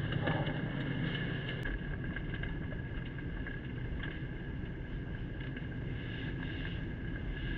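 Car cabin noise while driving slowly: a steady low rumble of engine and tyres, with a few faint ticks.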